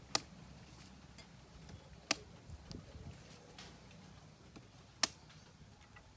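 Cleaver chopping into the husk of a young green coconut: three sharp knocks, the first just after the start and the others about two and three seconds apart, with a few fainter taps between.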